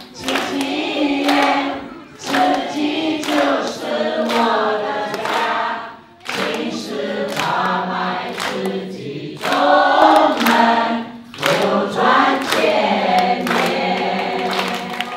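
A mixed group of men's, women's and children's voices singing a song together in phrases with short breaks, while hands clap along.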